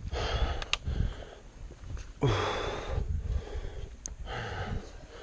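A person breathing hard and heavily, several loud breaths a second or two apart: out of breath from climbing uphill.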